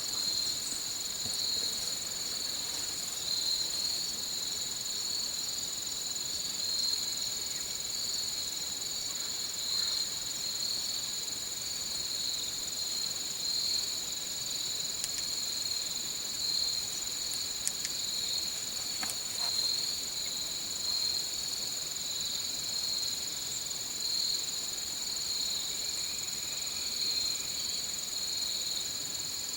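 Outdoor insect chorus of crickets trilling: one high, steady trill over a lower one that swells and fades in a slow, regular pulse. A few faint ticks come and go.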